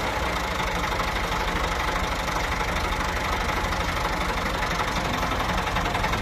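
Massey Ferguson 260 tractor's diesel engine idling steadily with a fast, even knock.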